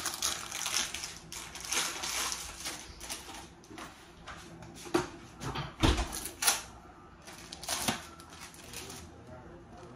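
Plastic wrapping of individually wrapped cheese slices crinkling as the pack is opened and a slice is peeled free, with a few sharp clicks and one dull knock about halfway through.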